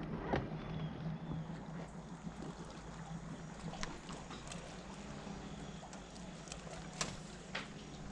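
Electric trolling motor humming steadily as the boat is moved along a dock, with a few scattered light clicks and knocks on the boat.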